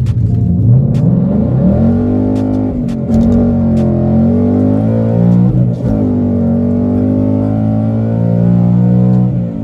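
Ford Mustang GT's 5.0 V8 at full throttle on a launch, revs climbing hard. The pitch dips briefly about three and six seconds in, as at upshifts, then climbs again.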